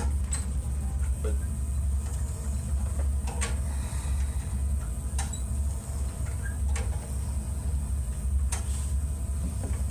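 Shuttle TNT's PNF pulley cords and handles giving short, sharp clicks every one and a half to two seconds as the cords are pulled in and let back out, over a steady low hum.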